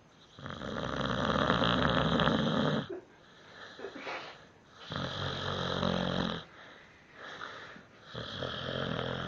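Staffordshire bull terrier snoring: three long snores a few seconds apart, each lasting one and a half to two and a half seconds, the first the loudest.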